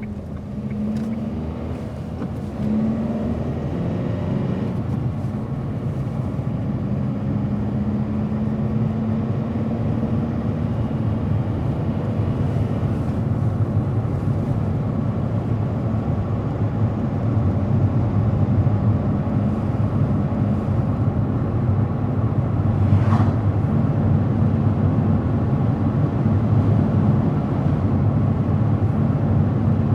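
Car driving on the open road: engine note rising as it picks up speed in the first few seconds, then steady engine and tyre rumble at cruising speed.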